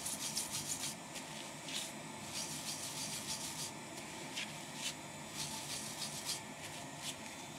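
Paper tissue and cotton swab rubbing over a laptop motherboard, cleaning off flux after soldering: runs of quick scrubbing strokes with short pauses between them.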